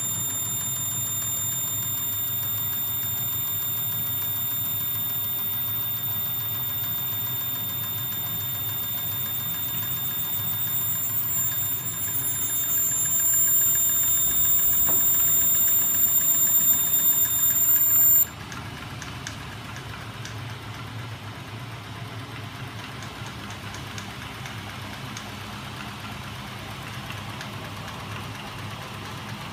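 Homemade magnet-linkage machine driven by a 24 V DC electric motor, running with a low hum and a steady high-pitched whine. The sound grows louder until about two-thirds of the way through, when the whine cuts off suddenly and the level drops. After that only quieter running with fast light ticking is left.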